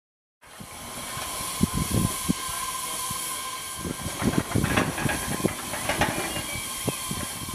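Steam hissing steadily from a 5-inch gauge 0-4-0 live-steam tank locomotive standing in steam, with scattered knocks and clunks around it.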